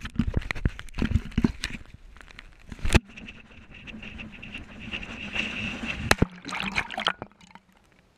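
Handling noise on a waterproof action camera: knocks and clicks against the case, then water sloshing and trickling around it as it is dipped into the river, going quiet and muffled once it is underwater near the end.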